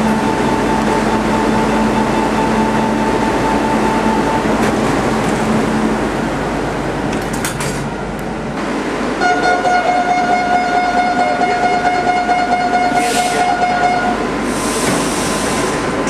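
Barcelona Metro train door-closing warning signals: a steady warning tone for about four seconds, a few clicks near the middle, then a second, buzzier warning tone for about five seconds. Short hisses of air follow near the end, over the running noise of the train.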